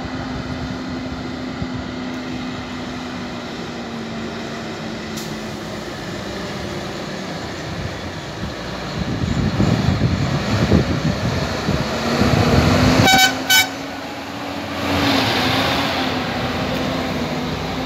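Heavy trucks labouring up a road, their engines running steadily and growing louder as they approach. About 13 seconds in a horn sounds two short blasts, and then a truck passes close by with a loud swell of engine noise.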